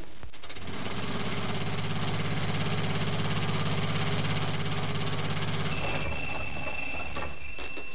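Sound effect of a motor car's engine running with a fast, even chugging beat. Near the end it gives way to a telephone bell ringing for about two seconds.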